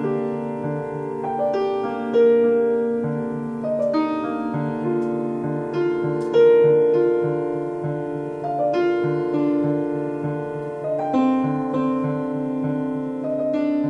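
Background music: a slow piano melody of held notes over a low note repeated a few times a second.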